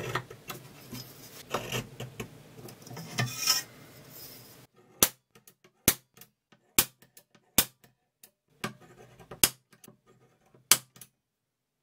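Steel scriber scratching layout lines into a dye-coated metal plate along a steel rule, followed from about five seconds in by an automatic center punch snapping sharply, about one snap a second, to mark points on the layout.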